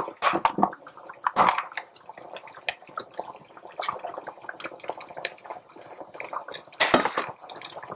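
Spoon scraping and tapping a plastic container while scooping topping onto cabbage rolls in an electric multi-cooker, with wet clicks and drips from the simmering pot. Irregular small clicks throughout, with a few sharper knocks, the loudest near the end.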